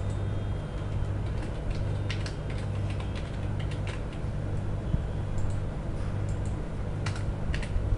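Computer keyboard keys clicking in scattered runs, with a burst of keystrokes about two to three seconds in and a few sharper clicks near the end, over a steady low hum.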